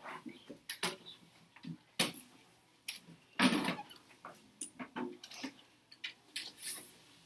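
Irregular small knocks, clicks and rustles of a classroom of students working at their desks, with a louder, longer rustle about three and a half seconds in.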